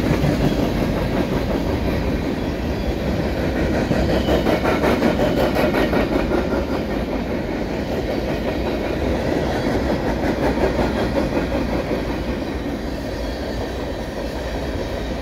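Freight train's boxcars rolling past at close range: steel wheels rumbling and clattering along the rails, easing a little near the end.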